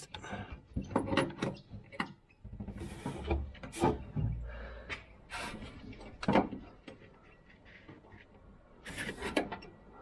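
Irregular metal clicks, taps and light knocks of hands fitting a bolt and the new shift cable end to the shift lever bracket at the base of a steering column, with a few brief brushing rustles.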